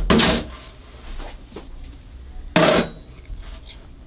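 Tools and small objects being handled on a cluttered workbench: two loud clunks, one at the start and one about two and a half seconds in, with light clicks and rattles between.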